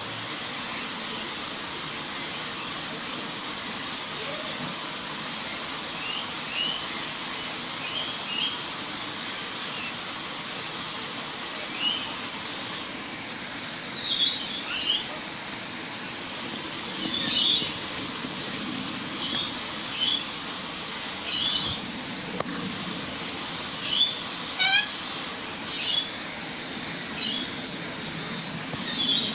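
Major Mitchell's cockatoo giving short, repeated chirping calls, sparse at first and more frequent and louder from about halfway, over a steady high-pitched hiss.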